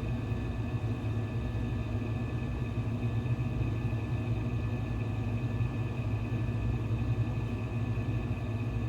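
Steady low background hum with a few faint, constant high tones, like a running fan or appliance; nothing else happens.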